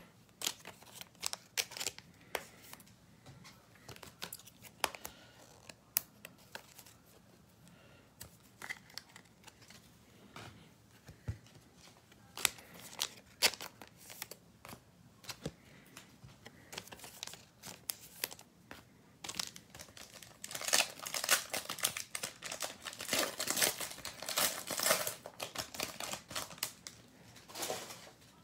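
Scattered light clicks and rustles of trading cards being handled, then, about twenty seconds in, a stretch of dense crinkling and tearing as a card pack wrapper is opened.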